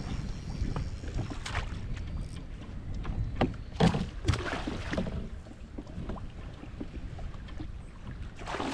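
Water lapping and slapping against the hull of a Hobie Pro Angler fishing kayak, several short splashes over a steady low rumble of wind on the microphone.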